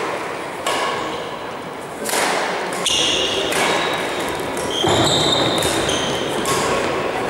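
Badminton rally in a sports hall: several sharp racket strikes on the shuttlecock, roughly a second apart and echoing, with short high squeaks of court shoes on the floor.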